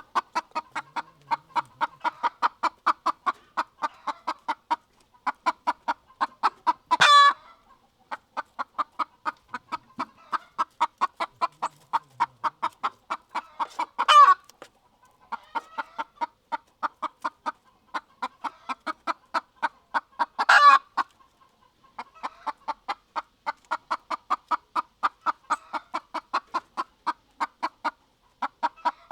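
Rooster clucking in a rapid, even run of about four clucks a second, broken three times by a short, loud call. The same clucks-then-call pattern repeats about every seven seconds.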